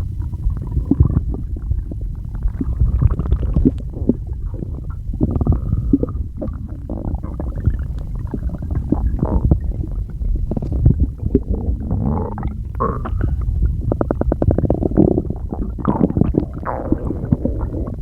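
A person's stomach growling and gurgling: a continuous low rumble broken by many short pops and squelches. About two-thirds of the way through comes a quick rattling run of gurgles.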